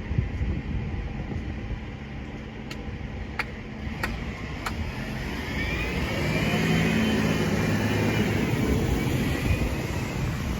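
A vehicle passing close by, building to its loudest a little past the middle with a rise and fall in pitch as it goes by, over wind noise. Four sharp clicks come earlier, evenly spaced.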